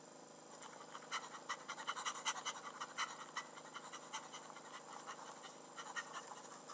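Faint, quick, irregular panting of an animated character out of breath.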